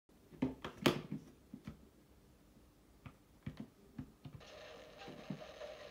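Several separate clicks. About four and a half seconds in, the model ALCO RS-1's ESU sound decoder starts its diesel locomotive sound from the model's small loudspeaker, a steady sound that grows louder.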